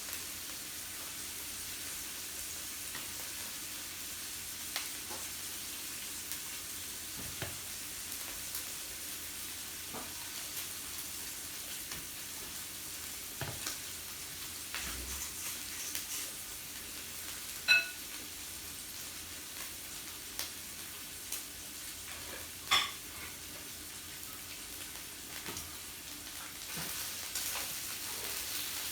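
Meat sizzling steadily on a yakiniku grill, with scattered light clicks. Two louder, sharper clinks stand out, the first one ringing briefly.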